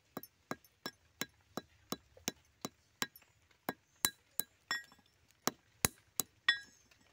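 A flat wooden stick striking small green fruits on a brick, knocking them open to get the seeds out: sharp, evenly spaced knocks about three a second, a few with a brief ring, stopping shortly before the end.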